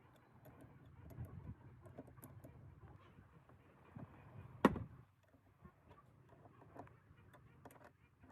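Light clicks and taps of small objects being handled, with one sharp knock about halfway through.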